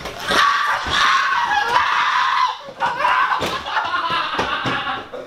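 A man wailing in anguish, two long loud cries with a short break between them.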